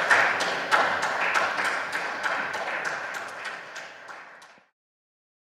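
Applause in a parliament chamber with separate hand claps audible, fading and then cut off abruptly about four and a half seconds in.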